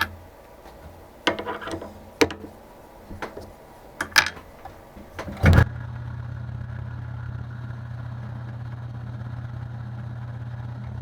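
Light metal clicks and knocks of machine setup, then a sharp clunk about five and a half seconds in as a small machine motor switches on and runs with a steady low hum.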